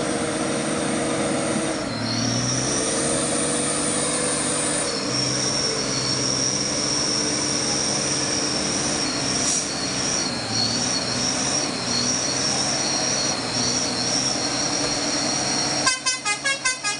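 Diesel engine of a heavily loaded Mitsubishi Fuso 6x4 truck running hard as it pulls slowly through mud, its note shifting a couple of times in the first few seconds, with a steady high whine over it. Near the end a rapid pulsing, horn-like tooting cuts in.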